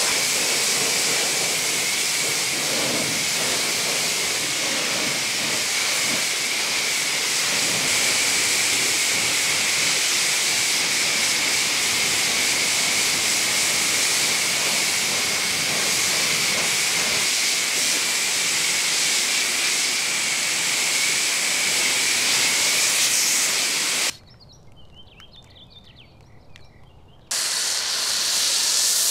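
Pressure washer spraying water, a steady hiss with a faint high tone in it. It stops for about three seconds near the end, then starts again.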